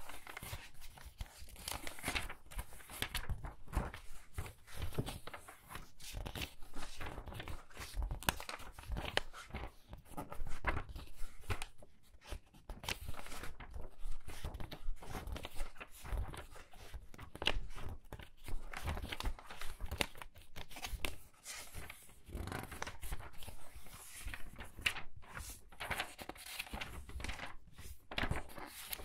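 Pages of a book being turned quickly one after another, a continuous run of short papery swishes and flicks.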